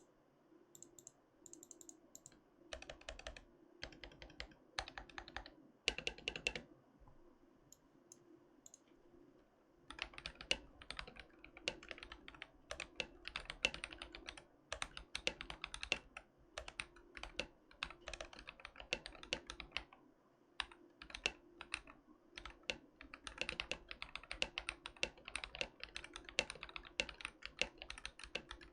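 Typing on a stock Akko ACR67 acrylic mechanical keyboard with unlubricated Akko Vintage White switches. A few short bursts of keystrokes give way, about ten seconds in, to steady fast typing with one brief pause.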